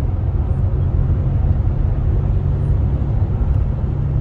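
Steady low rumble of a car driving along a freeway: road and engine noise, heard from inside the moving car.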